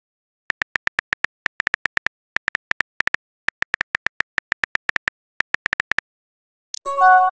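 Synthetic keyboard-typing clicks from a texting-story app, several a second in quick runs with short pauses, one per letter typed. Near the end comes a short bright chime as the message is sent.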